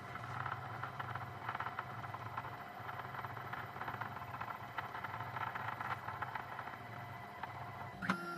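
2M2 Tank CNC key cutting machine scanning the tracks of a laser key with its probe: a faint steady motor hum with light irregular ticking as the probe traces along the key.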